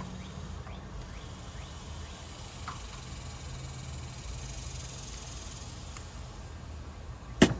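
Steady low outdoor rumble with a faint high insect buzz swelling through the middle, and one sharp knock near the end.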